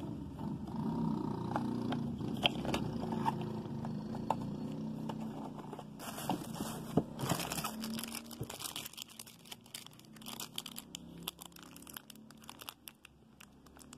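Clear plastic packaging crinkling and rustling as wrapped products are handled and pulled out of a cardboard box, with dense bursts of crackling from about six seconds in that thin out near the end.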